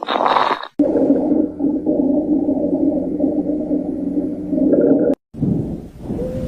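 Abnormal lung sounds through a stethoscope. A short breath sound is followed by a low-pitched musical wheeze of several held tones that lasts about four seconds, the sign of narrowed or secretion-filled airways. After a brief break, a new breath sound with short arching tones begins.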